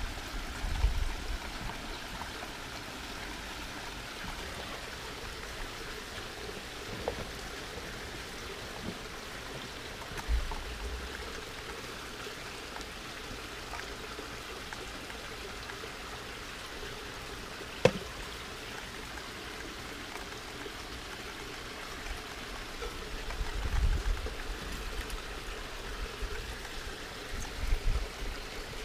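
Steady sound of running water, with a few dull low thumps and one sharp click a little past the middle.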